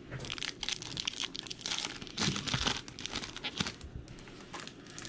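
Wrappers of Topps Stadium Club baseball card packs being torn open and crinkled by hand: irregular crackling rustles throughout, in denser clusters.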